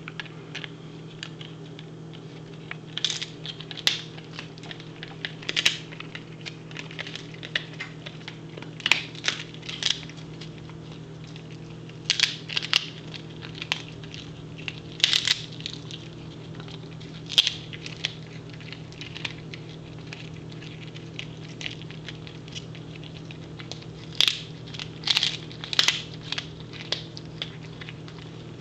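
A Pembroke Welsh Corgi chewing a dehydrated duck foot: crisp, brittle crunches come in irregular clusters every second or few seconds, with quieter chewing between. A steady low hum runs underneath.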